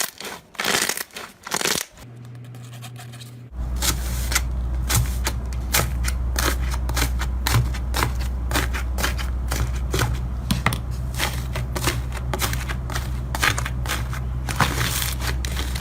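Slime being squeezed and pressed by hand. It starts with a few crunches, then after a brief lull comes a long run of dense small pops and crackles over a steady low hum.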